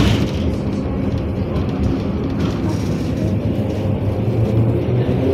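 NefAZ-5299 city bus under way, heard from inside the passenger cabin: a steady engine and road rumble, with the engine note rising near the end.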